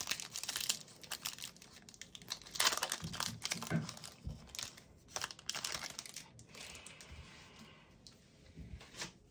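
Foil Match Attax card pack being torn open and crinkled by hand: irregular crackling and rustling, busiest in the first six seconds and thinning out near the end.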